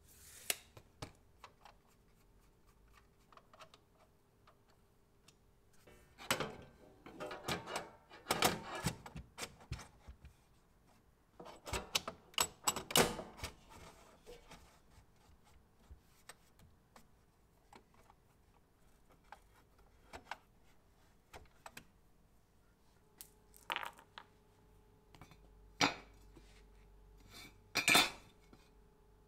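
A steel tape measure's blade retracts with a quick rattle, then come two bouts of metallic clattering and knocking as metal parts are handled. Near the end there are a few separate sharp metal knocks.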